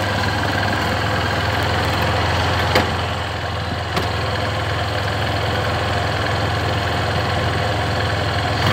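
Motorcycle engine running steadily at low revs, with no change in pitch. Two short clicks sound a little over a second apart near the middle.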